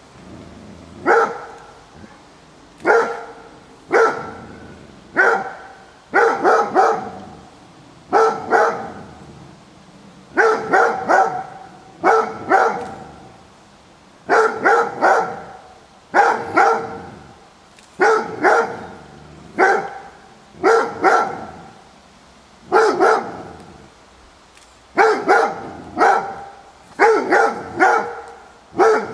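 Rhodesian ridgeback barking over and over at an unfamiliar figure, single barks and quick runs of two or three, about one burst every second or two.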